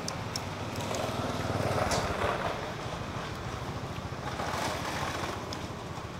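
An engine running with a steady low pulsing hum, growing louder from about one second in, loudest around two seconds, then easing off.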